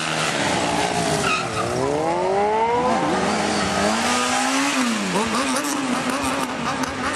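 Sport motorcycle engine revved hard during stunt riding, its pitch dropping and climbing back several times as the throttle is worked.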